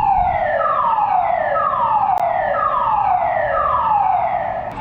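Fire alarm sounding its evacuation signal: a loud tone that sweeps downward over about a second and repeats about once a second, the falling-sweep pattern of the German DIN evacuation tone.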